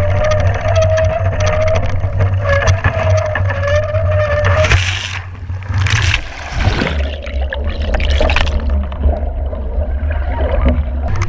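WASZP foiling dinghy at speed in strong wind: wind rumbling on the microphone and a wavering whine, then a crash with loud splashes about five, six and eight seconds in.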